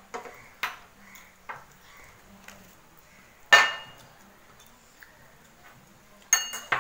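Dishes and a metal spoon clinking at a meal table: a few light clicks, one louder ringing clink about three and a half seconds in, and a quick cluster of clinks near the end.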